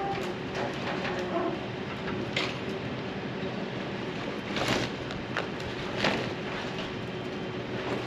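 An engine or machine running steadily, with several sharp knocks and clacks over it.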